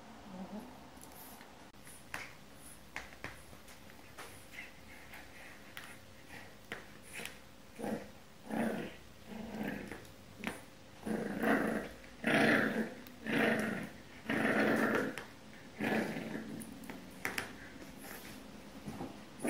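French bulldog puppy growling in a run of short, repeated bursts that start about eight seconds in and are loudest a few seconds later, then taper off. Before that, only a few faint ticks.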